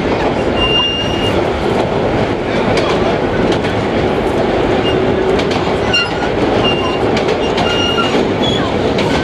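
Vintage R1 subway train heard from inside the car as it runs through the tunnel: a steady, loud rumble of wheels on the rails, with scattered clicks at the rail joints and several short, high squeals from the wheels.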